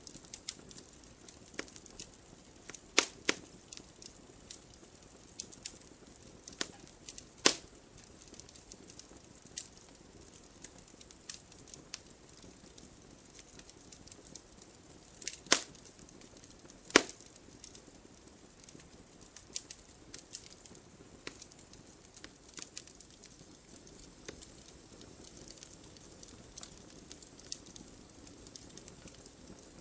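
Wood fire in a fireplace crackling, with irregular sharp pops over a soft hiss; four louder pops stand out, about 3, 7.5, 15.5 and 17 seconds in.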